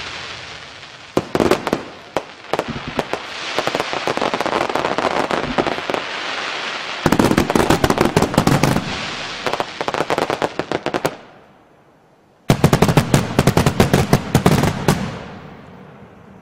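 Fireworks and firecrackers going off in rapid strings of crackling bangs. They stop abruptly about 11 seconds in, start again about a second later with a dense burst, and fade near the end.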